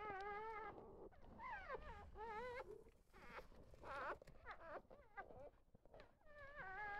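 Newborn goldendoodle–golden retriever cross puppies whining: about half a dozen short, high, wavering cries, one after another.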